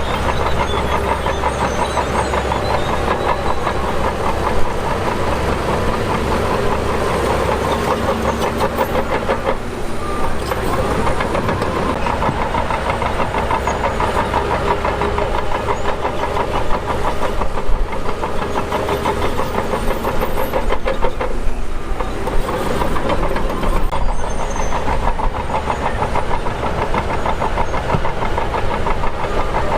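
Shantui DH17 bulldozer's diesel engine running steadily under load as it pushes dirt, with a fast continuous clatter and a few sharper knocks.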